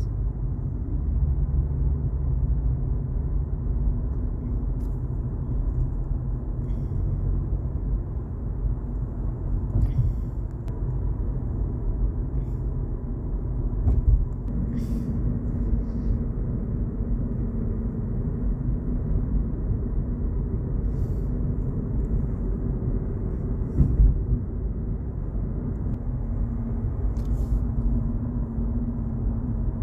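Road noise heard inside a moving car: a steady low rumble of tyres and engine, with a few brief knocks and ticks scattered through it.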